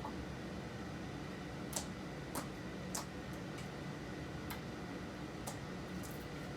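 Slime being handled, giving off several short, sharp clicks and pops at irregular intervals over a steady room hiss.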